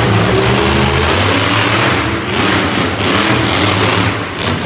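Monster truck engine running loud as the truck drives, its revs rising and falling.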